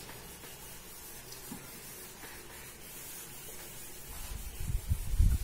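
Whiteboard being wiped with an eraser: faint rubbing hiss, then a few dull low thumps near the end.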